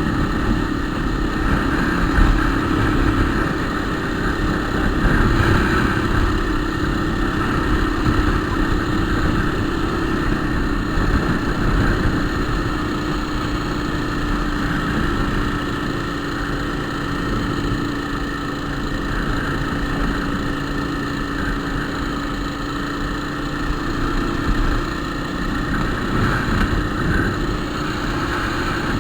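Motorcycle engine running steadily while the bike is ridden, with a steady hum and low rumble throughout.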